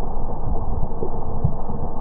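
Mitsubishi L200 pickup's engine running steadily as it drives through deep mud, heard as a rough, even rumble with wind buffeting the microphone.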